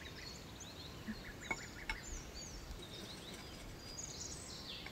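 Birds chirping: many short, high-pitched calls overlapping, with two faint knocks about one and a half to two seconds in.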